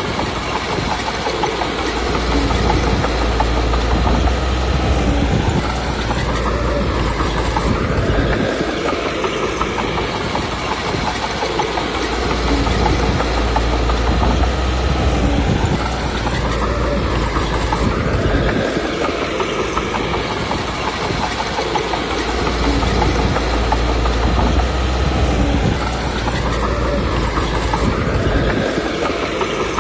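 Komatsu D21P bulldozer working, its diesel engine running under load with the clatter of its steel tracks. It swells and eases in a repeating cycle about every ten seconds, with a rising-and-falling change in engine note at the end of each cycle.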